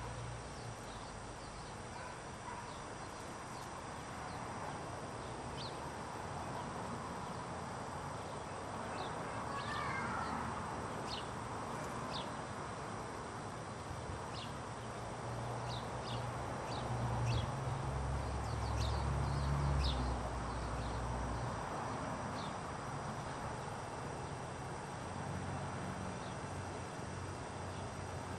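Steady outdoor background hiss with scattered short, high chirps, and a low rumble for a few seconds past the middle.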